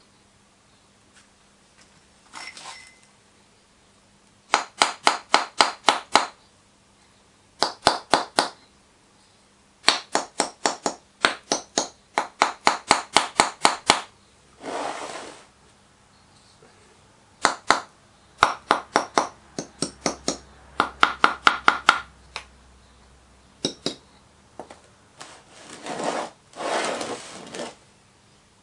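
Quick runs of light, sharp metal taps, several a second, in bursts with short pauses: a small metal rod rapping against pins set in a pattern bedded in greensand, loosening the pattern so it can be drawn from the mould. A few softer rubbing sounds come in between, near the middle and towards the end.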